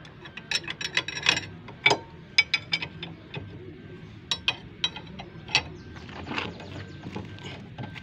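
Steel spanner on a wheel-hub bolt, clicking and clinking as it is worked, with irregular sharp metallic clicks in a cluster over the first three seconds and another around four to six seconds in.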